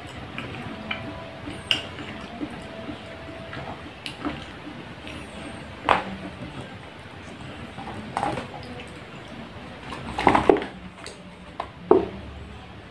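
Close-up eating sounds of a mouthful of milk pudding being chewed, with scattered short clicks and knocks as a small cardboard milk carton is handled and lifted off a set pudding block. The loudest knocks come in the last few seconds.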